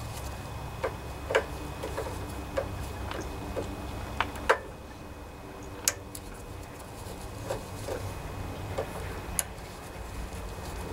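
Screwdriver turning out the fuel pump cover screws on a small-engine carburetor, its metal tip clicking and ticking against the screw heads in scattered, irregular clicks, a few of them sharper than the rest.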